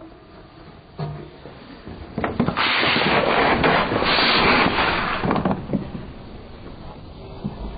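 Car tyre rolling over two liquid-filled plastic drink bottles, the plastic crackling and crunching as they are flattened. The crunching is loudest for about three seconds in the middle, with a few sharp cracks before and after.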